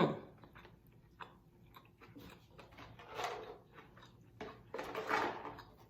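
A person chewing battered sweet and sour chicken close to the microphone, with small wet mouth clicks and two longer crunching bouts, about three and about five seconds in.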